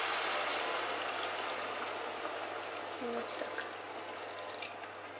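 Boiled water poured into a hot pot of frying veal and potatoes, the sizzling hiss fading steadily as the water goes in.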